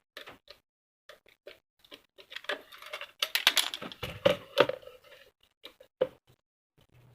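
Table fan parts being handled and fitted together by hand: a run of small clicks, taps and rattles, thickest around the middle, with no motor running.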